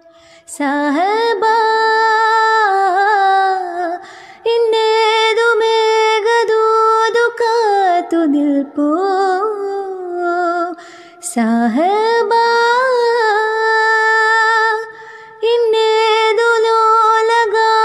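A woman singing a slow, ornamented melody as background music, in long held notes that scoop up at the start and glide and waver, phrase by phrase with short breaths between.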